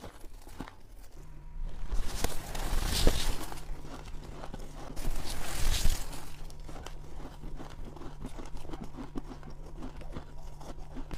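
Someone biting and chewing shaved ice close to the microphone: crisp, crackling crunches, loudest in two spells about two and five seconds in.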